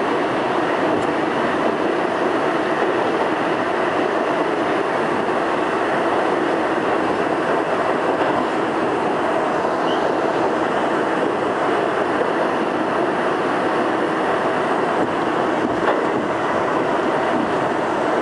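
R62A subway car running steadily at speed through a tunnel, heard from on board: a continuous even noise of wheels on rail and the moving car.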